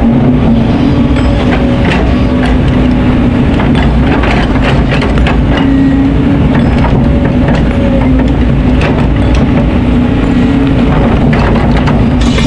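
Kobelco hydraulic excavator's diesel engine running loud and steady under working load, heard from the operator's cab, with scattered knocks and clatter of stones as the bucket digs and swings sand.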